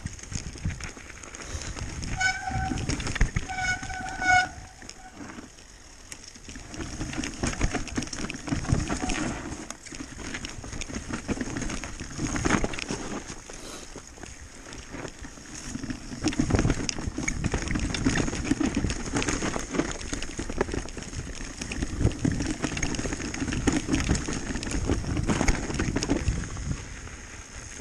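Downhill mountain bike rattling and clattering over a bumpy snow-covered trail, with tyre rumble and wind rushing past a handlebar-mounted camera, louder and quieter in stretches. About two seconds in, the disc brakes squeal twice briefly.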